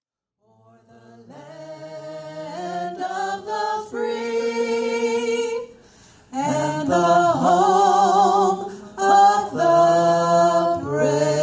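A man singing unaccompanied into a handheld microphone, holding long notes with vibrato. It fades in over the first few seconds and pauses briefly about halfway through.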